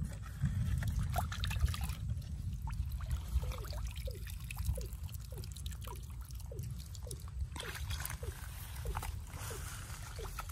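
Shallow water sloshing and trickling as a person wades and handles a woven bamboo basket and a glass fish container, over a steady low rumble. From about three seconds in, a faint short falling call repeats about twice a second.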